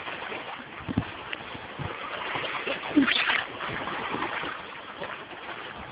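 Shallow water splashing as a dog wades out onto a rocky bank carrying a frisbee, with a brief louder burst about three seconds in and a few dull knocks.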